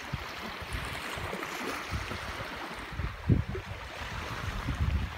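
Small waves washing over a shallow sandy shore, with wind gusts buffeting the microphone, the strongest gust a little past three seconds in.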